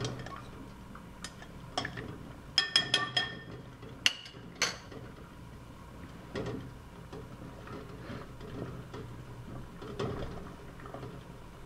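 A spoon clinking against a glass jug: a few light clinks, then a quick run of ringing taps about two and a half seconds in and two sharper knocks around four seconds in, followed by soft handling noises.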